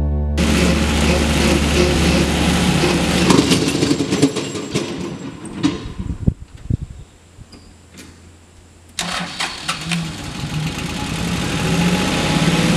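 Farm tractor engine running as it pulls a bush hog rotary mower through tall grass, briefly dropping much quieter past the middle before coming back.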